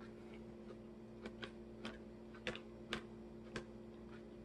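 Close-miked chewing of salad: about half a dozen soft, irregular crunchy mouth clicks, over a faint steady hum.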